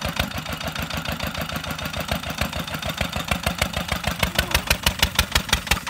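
Old Petter diesel engine running with an even beat of firing thuds, about seven or eight a second, getting louder over the last couple of seconds.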